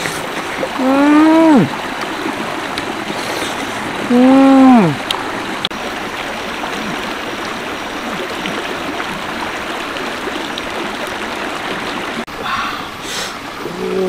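Rocky stream rushing steadily over stones. Twice, about a second in and again around four seconds, a voice gives a short hum that rises and then falls in pitch; these hums are the loudest sounds.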